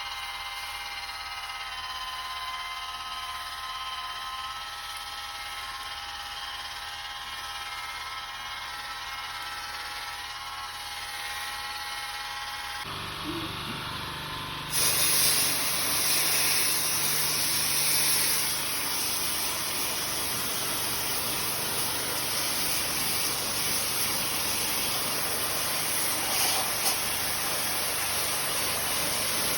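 A steady mechanical whine with several fixed tones, then about fifteen seconds in a loud, even spray hiss starts and keeps going, typical of a pressure washer spraying during air-conditioner cleaning.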